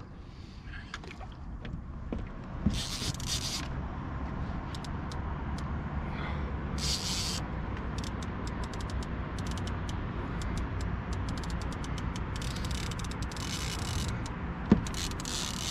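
Fishing reel's drag buzzing in short bursts as a hooked wels catfish takes line, with quick clicks between, over a steady low rush. A single sharp knock near the end.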